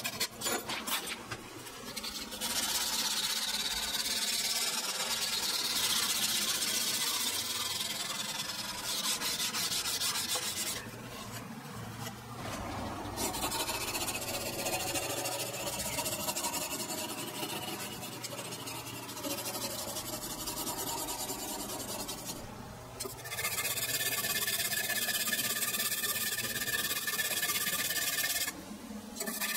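Sandpaper scraping back and forth over a mild steel karambit blade in quick repeated strokes as it is hand sanded. The sound stops and changes character abruptly several times.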